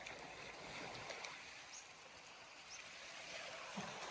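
Faint, steady wash of small waves on a rocky, sandy shore.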